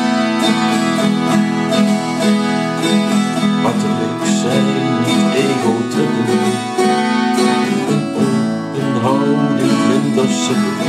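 12-string acoustic guitar strummed in a steady rhythm as an instrumental break between sung verses, with a wavering melody line above it.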